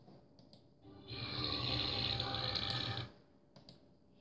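One long, deep belch lasting about two seconds, starting about a second in.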